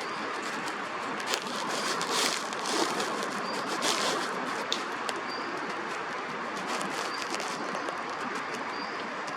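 Oriental magpie-robin giving a short, high call about every two seconds, over steady park background noise with a few brief rustling bursts about two and four seconds in.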